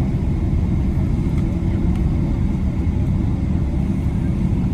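Steady low rumble of a moving vehicle, with a faint, high, steady whine above it.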